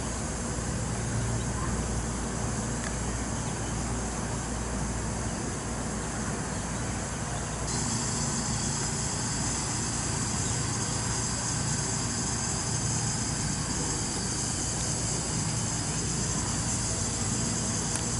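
Outdoor ambience: a steady low rumble, joined about eight seconds in by a steady high-pitched hiss that holds.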